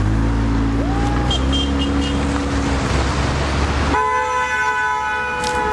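Road traffic with a low steady drone from a passing vehicle, then a car horn sounds one long honk about four seconds in, held for nearly two seconds.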